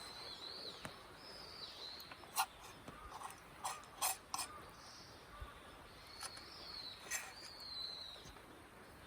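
Birds calling outdoors: thin, wavering high chirps in short phrases, with a few sharp clicks in the middle and one more later on.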